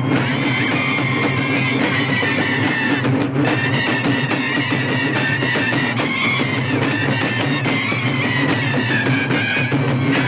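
Aare frame drums (Karnataka folk drums) beaten together in a loud, fast, continuous rhythm, with a held, wavering high melody line above them.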